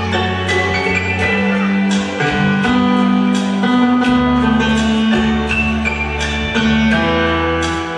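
Instrumental music: a melody of plucked notes over long held bass notes that change every second or two.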